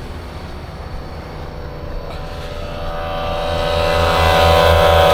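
A vehicle engine running, with a pulsing low rumble and a pitched drone that swell steadily louder from about halfway in.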